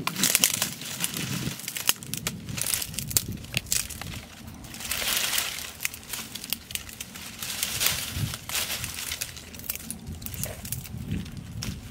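Irregular crinkling and rustling with many small crackling clicks, swelling briefly about five seconds in.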